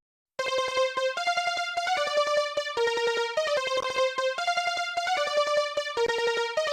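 Synthesizer music: quick repeated staccato notes stepping between a few pitches. It starts after a short gap and stops abruptly near the end.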